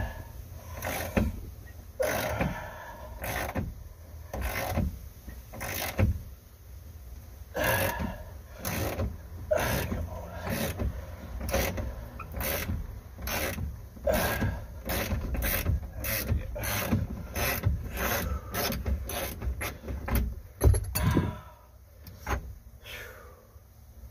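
Socket ratchet wrench clicking in repeated strokes as a stubborn steering-helm mounting bolt is worked loose, stopping near the end.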